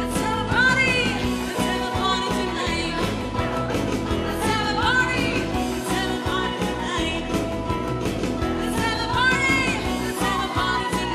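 Upbeat dance music from a party band, with a steady beat and melodic phrases that bend up and down in pitch.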